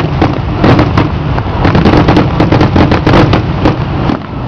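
Fireworks finale: many shells bursting at once, a dense run of overlapping booms and crackles over a continuous low rumble.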